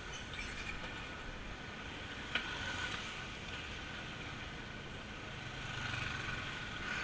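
Steady street traffic noise, with one sharp click about two and a half seconds in.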